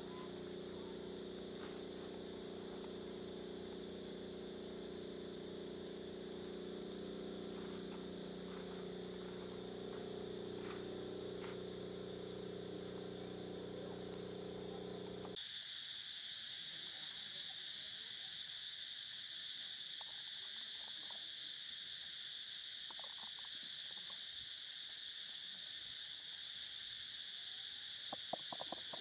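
A steady low hum with scattered faint clicks, then a sudden switch about halfway through to a steady, high-pitched insect drone, with a few clicks near the end.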